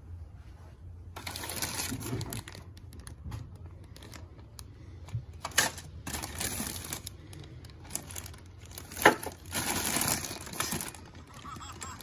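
Clear plastic zip-top bags of small toys and building blocks crinkling and rustling as they are handled and lifted off a shelf, in irregular bursts with a few sharper clicks, the loudest about nine seconds in.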